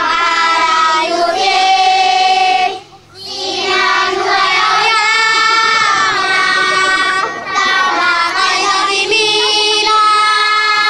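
A high voice singing long held notes in phrases, with short pauses between phrases about three seconds in and again about seven and a half seconds in.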